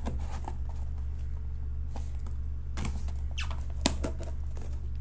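A cardboard shipping box being worked open by hand: scattered scratching, scraping and clicking of cardboard and tape, with a sharp click a little under four seconds in. A steady low hum runs underneath.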